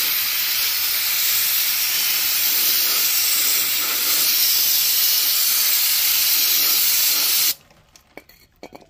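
Aerosol brake parts cleaner spraying in a steady hiss onto a grease-caked transmission gear and differential, cutting off suddenly about seven and a half seconds in. A few faint clicks and drips follow.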